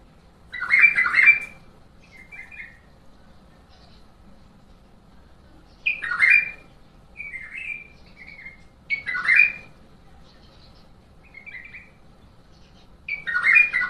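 White-eared bulbul singing: four loud, short warbled phrases a few seconds apart, with softer short phrases in between.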